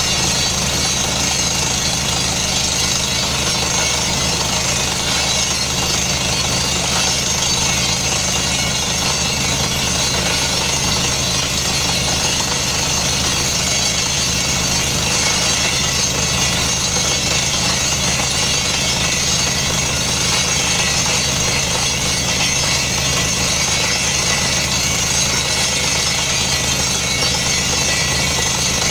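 Truck-mounted borehole drilling rig air-drilling a well: steady, rapid percussive hammering with a hiss of compressed air blowing dust out of the borehole. The rig's engine runs underneath.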